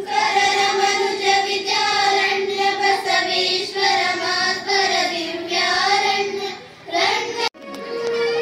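Young voices singing a slow, sustained melody, the notes held long and gliding gently. Near the end the singing cuts off abruptly and a steady held tone follows.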